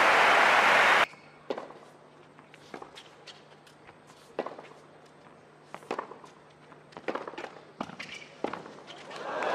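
Crowd applauding for about a second, then cut off sharply. A tennis rally follows, heard as separate sharp racket strikes on the ball and ball bounces on the hard court, spaced about a second or more apart. Crowd noise swells again near the end.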